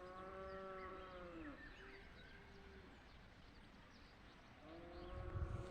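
A cow mooing twice, faint long drawn-out calls, one at the start and another near the end, with small birds chirping in the background.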